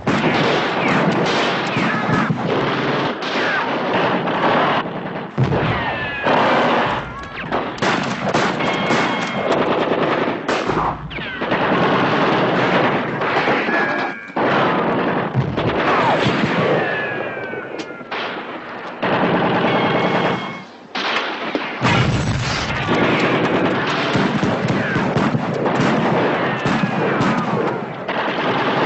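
Heavy gunfire in a film shootout: many shots in quick succession, nearly continuous, with a few short lulls.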